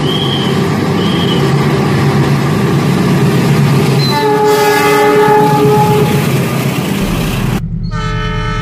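CC206 diesel locomotive arriving with its engine rumbling and sounding its multi-tone horn, with a long horn blast about four seconds in. Near the end the sound cuts to a different, cleaner horn chord.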